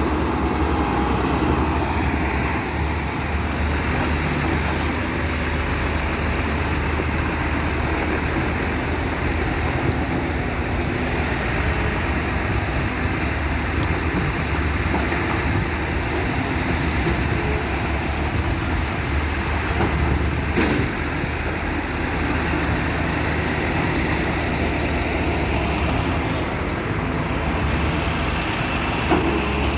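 Heavy diesel engine running steadily, a constant low rumble with no rise or fall in revs; one short knock about two-thirds of the way through.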